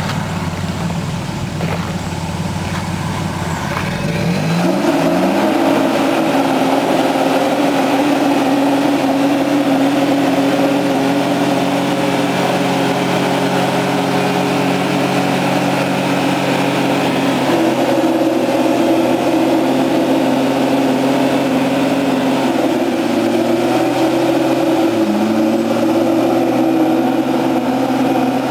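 Lifted Toyota 4Runner's engine idling, then revving up about four seconds in and held at high revs for a burnout with the rear tyres spinning on pavement. The revs dip and climb again briefly late on.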